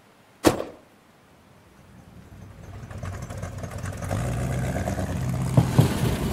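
A car door slams shut about half a second in, then a car engine comes up gradually and runs steadily, with a few sharp knocks near the end.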